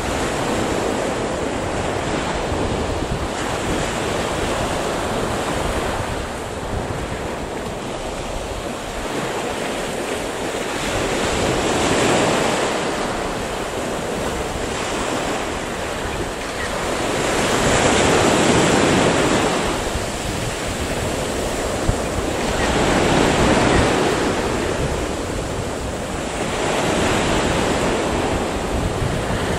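Sea waves breaking and washing up a pebble beach, the surf swelling louder every five or six seconds, with wind buffeting the microphone.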